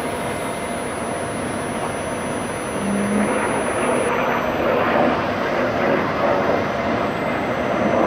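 Hongdu L-15 twin-engine jet trainer making a low pass, its engines producing a steady jet rush that grows louder about three seconds in.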